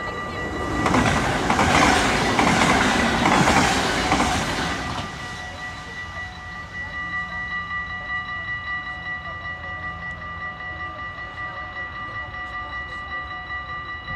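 Dutch level-crossing warning bell ringing in a quick, even rhythm. About a second in, a train runs over the crossing and its wheel and rail noise is the loudest sound for about four seconds. The bell keeps ringing after the train has gone.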